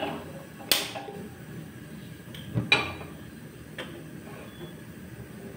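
A sharp click from a handheld gas lighter at the stove burner, then metal knocks as a pressure cooker is set down on the burner grate.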